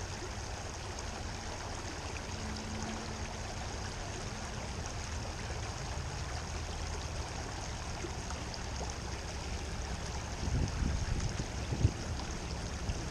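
Shallow river water running and rippling over rocks in a steady wash. A few low thumps come near the end.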